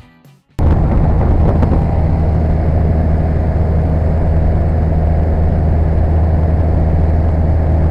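Engine and propeller of a small single-engine aircraft running steadily in flight, heard from inside the cabin as a loud, even drone with a deep hum. It cuts in abruptly about half a second in.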